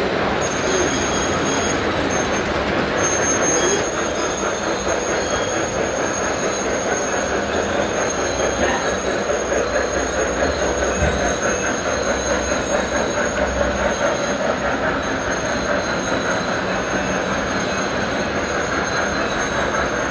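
G-scale model trains running on brass track: a steady rolling rumble and rattle of wheels on rail.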